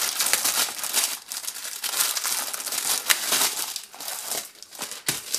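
Clear plastic film wrapper crinkling as it is picked at and pulled off a trading-card multipack, a dense crackle that thins out near the end.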